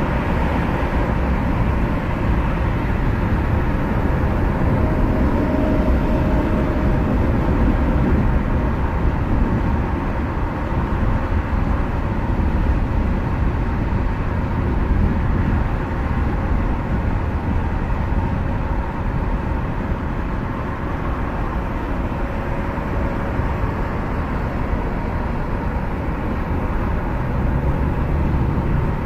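Steady road noise inside a moving car's cabin at highway speed: low tyre and engine rumble with a faint steady hum, unchanging throughout.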